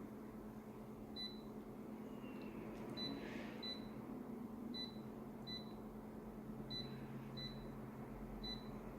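Faint short high-pitched electronic beeps, coming in pairs about every two seconds, over a low steady hum.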